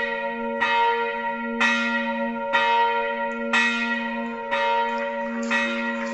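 Church bell ringing, struck about once a second, each stroke ringing on into the next.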